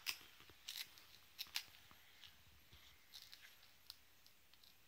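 A toddler chewing a crunchy snack: a few sharp crunches in the first two seconds, then fainter clicks from the mouth.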